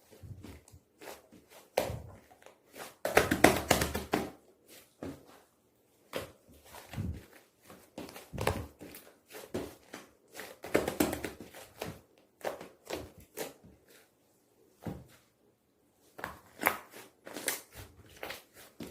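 Hands squishing and pressing a soft, fluffy slime, making irregular sticky clicks and crackles, with louder stretches of squishing about three seconds in and again about eleven seconds in.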